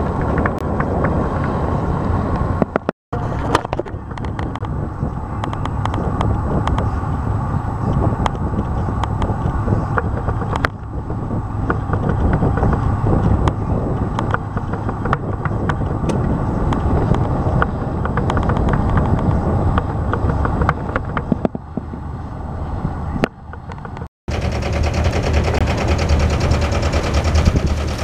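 Wind buffeting the microphone aboard a small sailboat under way: a steady low rumble full of sharp pops. It breaks off abruptly about three seconds in and again a few seconds before the end, picking up each time with a slightly different sound.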